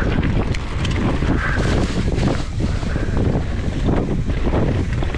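Enduro mountain bike ridden fast down a trail: wind rushing over the microphone and tyres rolling over dirt, with frequent small knocks and rattles from the bike over rough ground.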